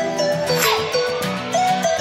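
Background music with a bright melody over a regular beat; a rising sweep starts about a third of the way in.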